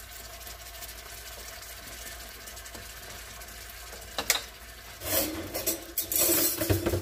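Kitchen things being handled: a steady low background hum, a sharp knock about four seconds in, then louder irregular clattering and rattling over the last two seconds.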